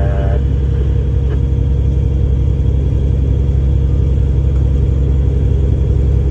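Diesel engine of a river towing motorboat (tug) running steadily at constant speed: a loud, deep, even hum.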